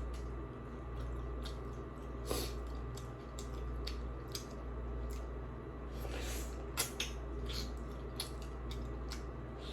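Close-miked eating sounds of noodle soup: wet chewing with many small clicks and a few short slurps, over a steady low hum.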